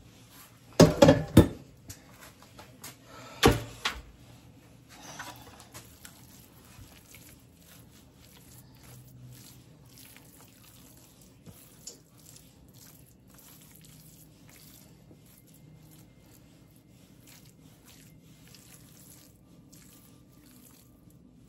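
Wooden spoon pressing and spreading moist dressing in a disposable aluminium foil pan, with a few loud knocks in the first four seconds, then soft, quiet squishing and scraping.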